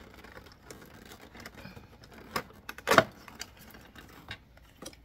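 Cardboard advent calendar door being pried open and a small cardboard product box pulled out: scattered light taps and rustles of card, with a sharper knock about three seconds in.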